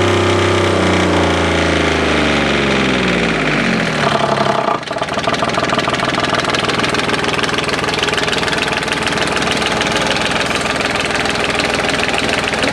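Daihatsu CLMD 30 marine diesel engine slowing from high revs to idle: its note falls steadily over about four seconds. It then runs steadily at idle.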